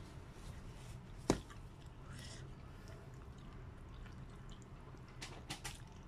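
Chopsticks and a metal spoon working noodles in a bowl of broth: one sharp click about a second in, then quiet handling, and a few lighter clicks near the end as noodles are lifted out of the soup.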